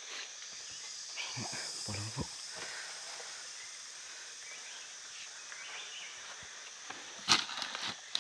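Footsteps and rustling through dry forest leaf litter, with a few crackles and one sharp, loud crackle about seven seconds in, over a steady high insect buzz.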